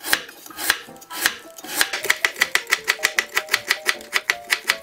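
Chef's knife chopping a carrot into thin matchsticks on a wooden cutting board. A few slower cuts are followed by quick, even chopping at about five strokes a second.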